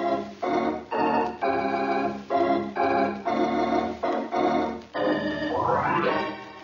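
Organ music bridge marking a scene change in an old radio comedy: a run of short chords, then a rising sweep near the end into a held chord.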